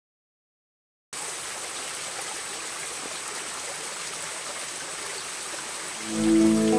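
Silence for about a second, then the steady rushing of a stream, with a thin, high, steady tone above it. Music with sustained notes comes in near the end.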